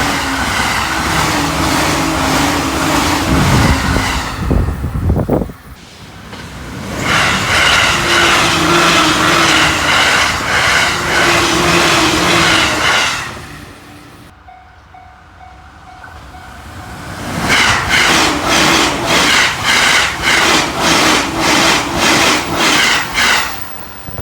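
Joban Line trains passing at over 120 km/h, three in a row with cuts between them, each a loud rush of wheels on rail. The last pass carries a fast, even clatter of wheels over rail joints, about two to three clacks a second.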